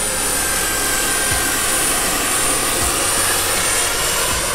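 Radio-controlled scale model SA 315 Lama helicopter in flight, running steadily with a thin high-pitched whine over a broad rushing noise.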